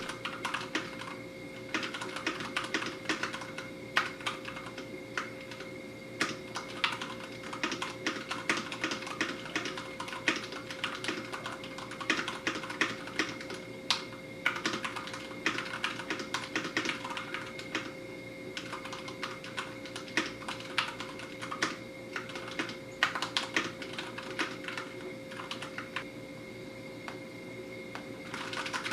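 Typing on an IQUNIX F96 mechanical keyboard with red Cherry MX linear switches: quick runs of keystrokes in bursts, with short pauses between them.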